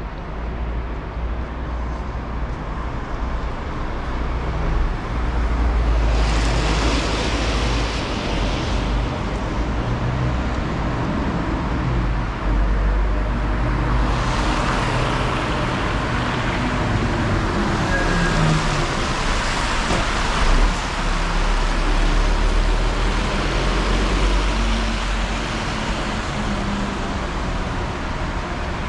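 Road traffic on a city street: a steady low rumble of engines and tyre noise. Vehicles swell past about six seconds in and again for a longer stretch from about fourteen seconds.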